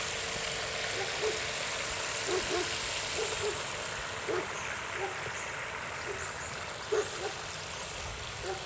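Radio-controlled scale boat with a 900kv brushless outrunner motor running at speed on the water: a steady rushing hiss of motor, propeller and spray that fades slowly as the boat draws away. Short low sounds pop up every second or so, the loudest about seven seconds in.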